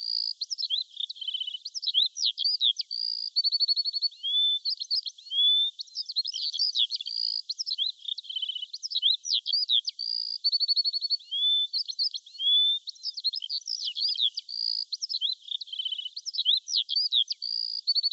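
Small songbirds singing in a stock birdsong recording: overlapping high chirps, quick rising and falling whistles and short buzzy trills, with a rapid trill coming back about every seven seconds.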